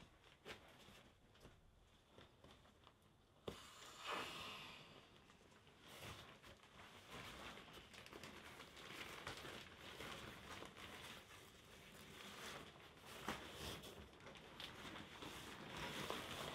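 Faint crinkling and rustling of an inflatable sleeping pad's fabric being handled and folded, with scattered small clicks and a brief louder rush about four seconds in.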